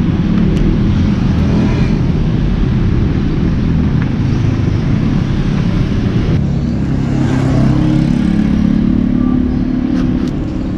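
A motor vehicle engine running steadily close by, a low rumble whose pitch shifts about seven seconds in.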